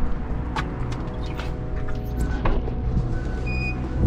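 Clicks, knocks and handling noise as a person pushes through a glass restaurant door and walks in, over a steady low hum, with a few short high electronic beeps midway and a louder thump of fabric brushing the microphone near the end.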